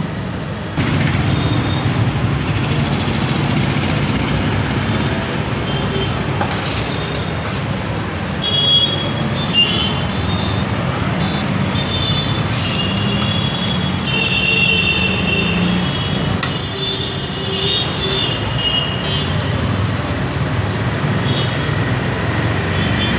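Steady rumble of road traffic, with a few sharp clicks scattered through it.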